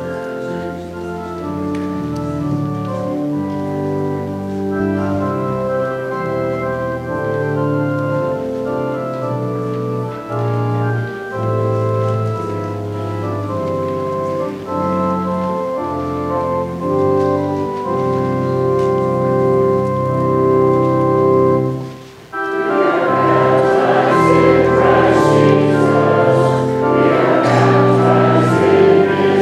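Church organ playing a hymn introduction in sustained chords. About 22 seconds in it breaks off briefly, and the congregation then starts singing the hymn with the organ.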